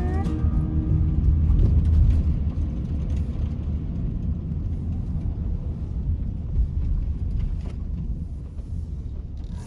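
Low, uneven outdoor rumble with no speech, taking over as background music cuts off just after the start.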